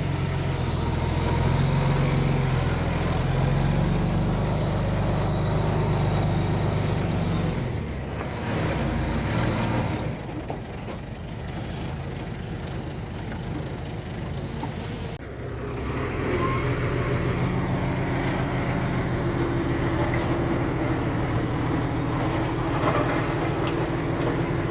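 Heavy diesel earthmoving machinery running steadily with a low engine hum. Brief high squeals come near the start and again around nine seconds in. The engine sound drops quieter about ten seconds in and comes back louder around fifteen seconds.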